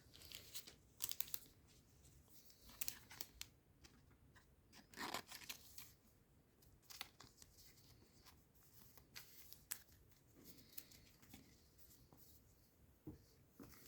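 Faint rustling and clicking of trading cards and foil booster packs being handled, in scattered short bursts.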